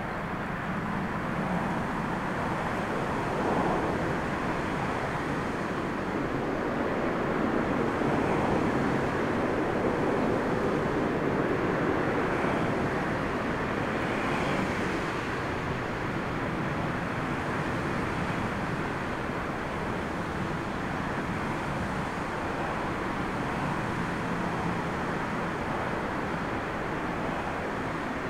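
Steady rushing noise of storm wind mixed with the engines of a Dash 8 turboprop airliner taxiing, growing a little louder a few seconds in and then easing.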